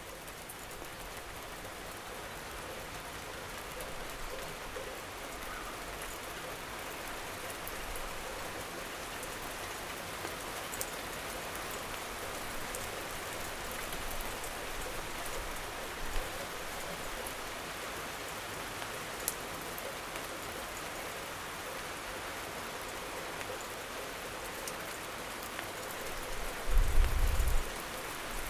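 Steady rain falling on hard surfaces, with a few sharp drip ticks, growing slightly louder over the first few seconds. Near the end comes a loud, low rumble lasting about a second.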